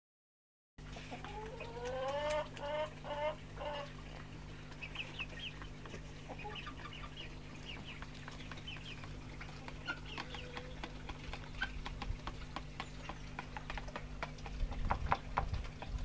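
Hens calling in a coop: a run of rising calls in the first few seconds, then scattered short high chirps and light clicks. A low rumble builds near the end.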